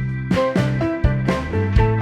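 Background music: a plucked guitar tune with a bass line and a steady beat.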